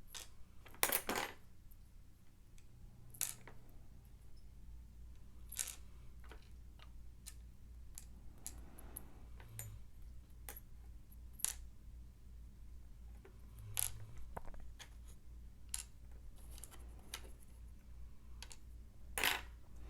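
Small metal parts of a Mul-T-Lock MT5+ cylinder clicking and clinking as the lock is taken apart and its sliders removed. The clicks come sharp and irregular, one every second or few.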